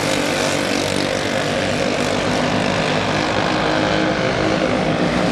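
Several quarter midget race cars' small single-cylinder engines running at racing speed around a dirt oval, their overlapping drone steady throughout.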